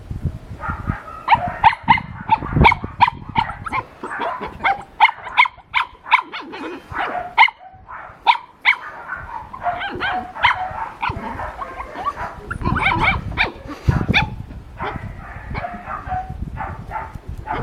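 Dog barking over and over, short sharp barks coming about one or two a second for most of the stretch.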